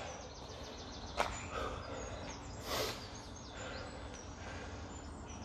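Quiet background ambience with small birds chirping faintly and repeatedly, a single click about a second in and a short hiss near the middle.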